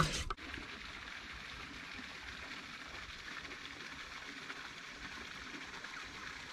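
Steady, even hiss of outdoor river ambience, flowing water and light air, after a brief louder handling sound right at the start.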